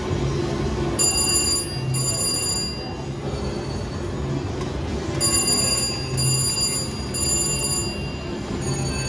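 VGT Lucky Ducky Vegas Wilds slot machine's electronic bell-like chimes ringing in several short spells as small wins rack up credits between reel spins, over a steady low din of casino floor noise.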